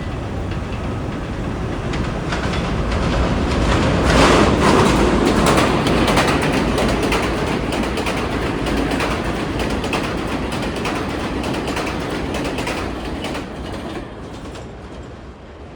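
New York City subway train running past, its wheels clacking over the rail joints. It grows louder to a peak about four seconds in, then fades gradually and drops away near the end.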